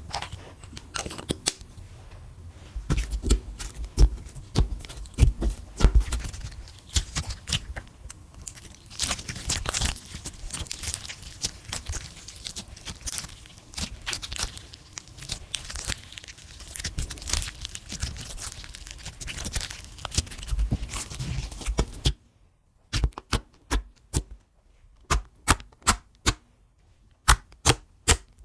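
Slime being worked and stretched by hand as makeup is mixed in, giving dense sticky clicks and crackling pops. Near the end the background drops away and only separate sharp clicks remain, a few each second.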